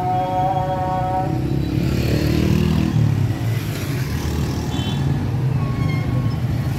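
Busy street traffic: motorcycle and car engines running close by, one engine revving up about two seconds in. A held tone ends about a second in.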